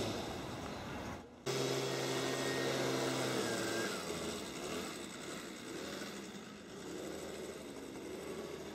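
Outdoor background noise with a distant vehicle engine hum. The sound briefly drops out about a second in, then a steady low engine hum holds for about two seconds before fading back into the general noise.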